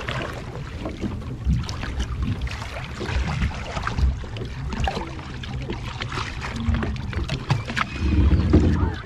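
Sea water sloshing and splashing right at the microphone as a grey whale surfaces just below the surface and water washes over its back, over a steady low rumble. The water noise swells louder near the end.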